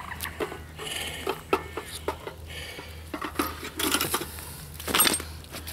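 Handling of a wet nylon carp weigh sling as it is lowered onto the mat: rustling fabric with a string of light clicks and clinks from its metal clips, and a louder rustle about five seconds in.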